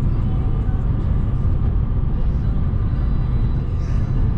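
Steady low rumble of a vehicle driving at road speed, engine and tyre noise heard from inside the cabin.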